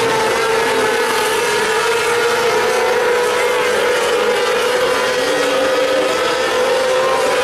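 600cc micro sprint cars' four-cylinder motorcycle engines running at high revs as they race around a dirt oval, a loud, steady high-pitched drone.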